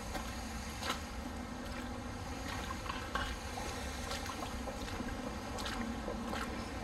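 Footsteps through shallow water and wet mud, a handful of steps roughly a second apart, over a steady low rumble and hiss.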